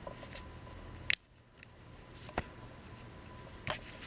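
Small fingerprint padlock being handled: one sharp click about a second in, then two fainter clicks.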